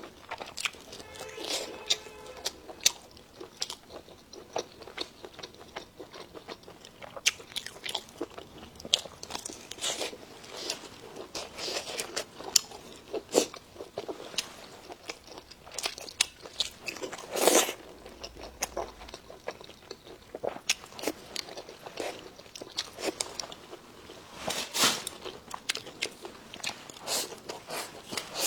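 Close-up mukbang eating: irregular crunching bites and chewing of food, with one louder crunch about two-thirds of the way in.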